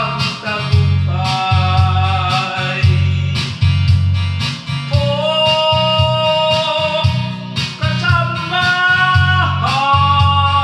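A man singing a slow song into a microphone over band-style backing music with a steady beat, holding some long notes, one for about two seconds in the middle.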